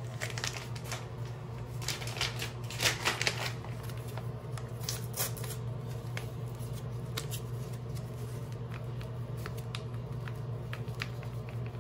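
Foil packet of hair-bleach powder crinkling and rustling as it is handled and tipped over a mixing bowl. The densest crackling comes about two to three seconds in, then sparse small ticks follow, over a steady low hum.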